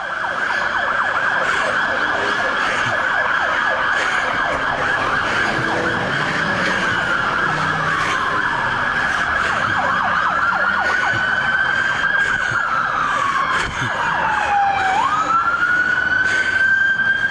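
Several police sirens sounding together: one holds a high, rapidly pulsing tone while another wails, gliding slowly down and up again several times.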